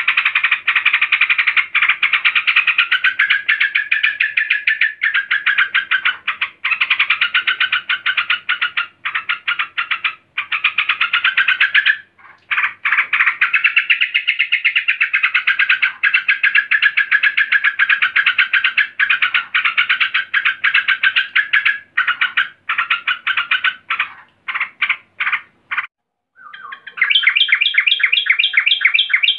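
Female yellow-vented bulbul (trucukan) giving a fast, unbroken chatter of calls, the agitated call of a female that draws a male. Near the end the chatter breaks into short bursts, then resumes in one last quick run.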